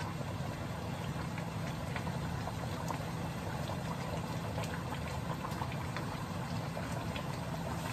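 Chicken afritada simmering and bubbling in a wok as it is stirred with a wooden spatula, with small scattered pops over a steady low hum.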